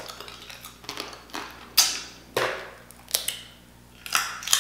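Close-miked eating of boiled crawfish: shells cracking and being picked apart, and meat being sucked and chewed. It is a string of sharp crackles and smacks, roughly one every half second to a second.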